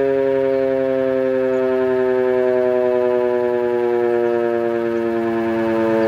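Gryphon 2048 electric motor-driven siren from England, freshly rewired and greased, running on a test: a loud sustained wail of several tones at once, its pitch sliding slowly down.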